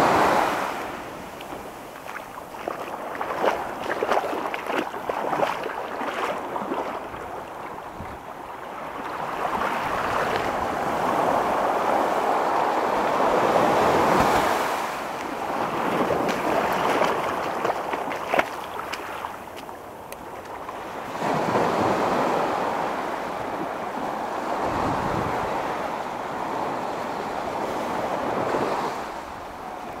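Small ocean waves breaking and washing up a sandy beach, the hissing wash swelling and fading every several seconds.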